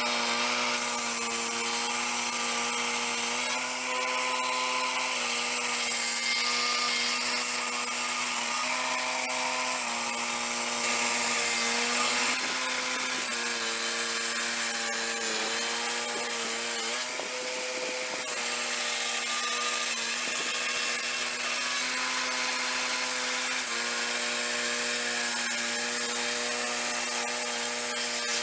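A swing-blade portable sawmill cutting a log: its small engine runs at a steady high speed under load, with the circular blade hissing through the wood.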